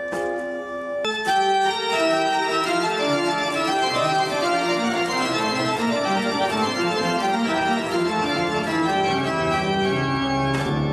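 Church pipe organ playing: a held chord, then about a second in a fast passage of many moving voices begins. A low bass note joins near the end.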